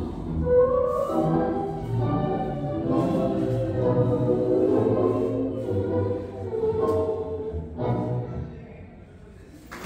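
Recorded Argentine tango music playing for the dance, its last phrase dying away in the final two seconds.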